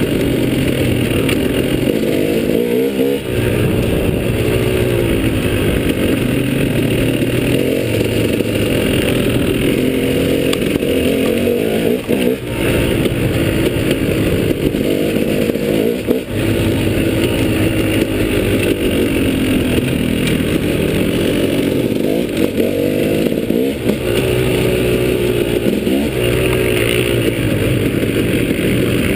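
Off-road dirt bike engine heard close up while riding a trail, the revs rising and falling again and again with throttle and gear changes, with a few brief drops when the throttle is rolled off.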